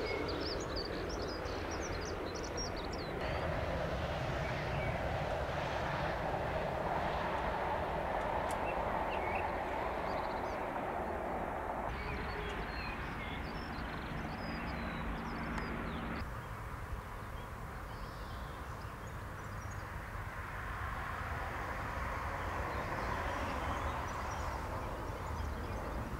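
Distant jet aircraft noise, a steady low rumble of airport ambience, with small birds chirping over it. The background changes abruptly a few times.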